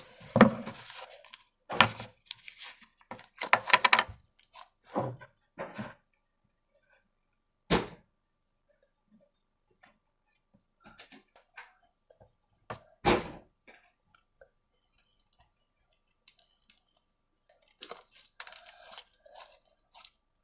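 Slime and its packaging being handled by hand: irregular crackling, crinkling and squishing, with two louder sharp sounds about eight and thirteen seconds in.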